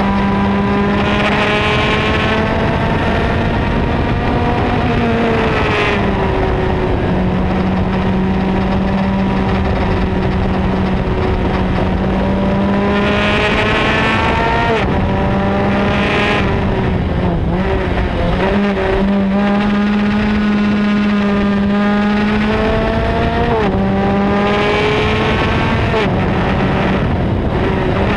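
Formula Speed 2.0 race car engine heard onboard at speed, its pitch climbing repeatedly and dropping back sharply several times as the car accelerates and changes gear, over a steady hum and rushing wind.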